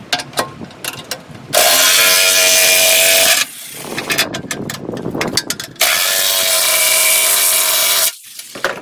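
Harbor Freight electric impact wrench hammering on the large bolts that mount a pin box, in two runs of about two seconds each, about a second and a half in and again near six seconds. Sharp clicks and knocks of the tools and socket come before and between the runs.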